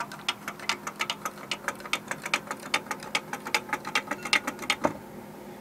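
Wooden hopping kangaroo toy hopping down a sloped wooden track, its feet tapping the board in a quick, even series of clacks, about six a second, that stops near the end.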